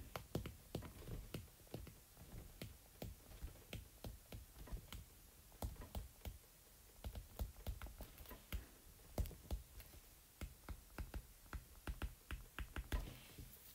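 Stylus tip tapping and ticking on a tablet's glass screen during handwriting: a faint, irregular run of light clicks.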